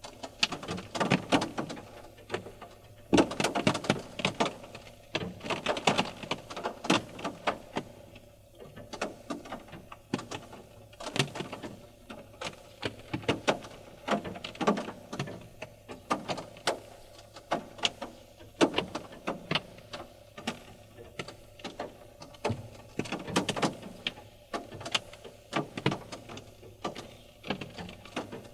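Rainwater dripping from tree branches onto a car after rain: irregular drops tapping on the car, sometimes in quick clusters, sometimes single and sparse.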